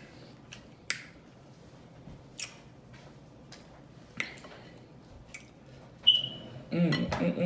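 Wet mouth smacks and clicks from eating seafood, a few sharp separate smacks spread out, then a short high squeak about six seconds in and a brief voiced sound from the eater near the end.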